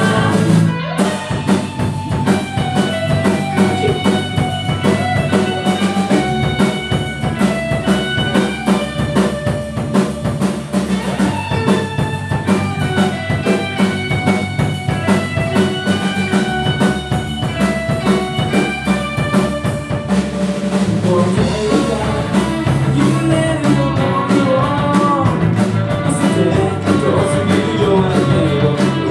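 Live rock band playing, with electric guitars, bass, keyboard and a drum kit under a male lead singer.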